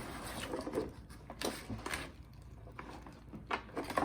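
Scattered light clicks and rustling from handling a doll in its plastic packaging.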